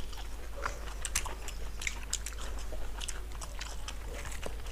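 Close-up chewing of two people eating rice and boiled bitter gourd by hand: irregular soft mouth clicks and smacks.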